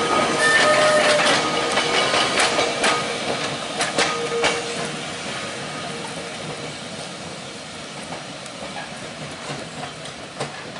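Manx Electric Railway electric tram and open trailer running along street-level track, wheels clicking and clattering over rail joints with a few brief squeals. The sound fades steadily as the tram draws away.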